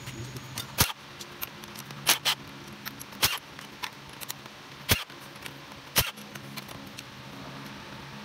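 Sharp metallic clinks and taps of tools and parts being handled on a bare engine block: about six loud ones spread unevenly, with fainter ticks between.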